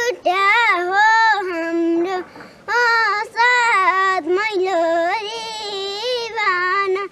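A young girl singing a Nepali folk song unaccompanied, in a high, clear voice with long held, wavering notes and a brief breath about two seconds in.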